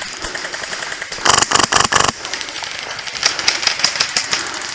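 Airsoft M4 with a Polarstar Fusion Engine (high-pressure-air driven) firing a rapid burst of sharp clacking shots a little over a second in. Fainter rapid gunfire from other airsoft guns rattles in the background near the end.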